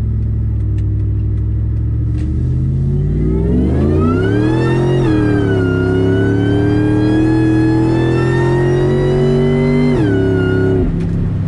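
Ford SVT Lightning's supercharged 5.4-litre V8 accelerating hard, heard from inside the cab. The revs climb quickly, drop abruptly about five seconds in at a firm upshift of its 4R100 automatic with a race valve body, climb again more slowly, then fall sharply about ten seconds in.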